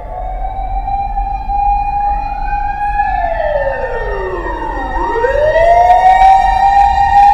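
Fire truck siren wailing: a slow rise to a held high note, a long fall about three seconds in, then a rise again about five seconds in, over the truck's low engine rumble. It grows steadily louder.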